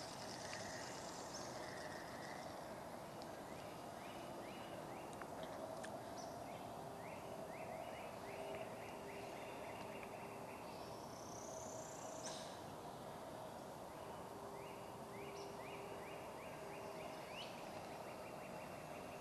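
Birds calling outdoors: runs of quick repeated notes, about three a second, and now and then a higher rising whistle, over steady background noise.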